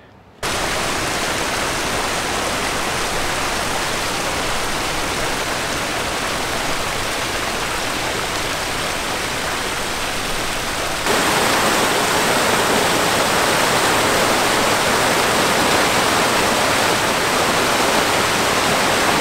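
Steady rush of fast-flowing mountain creek water. It cuts in abruptly about half a second in and steps up louder about eleven seconds in.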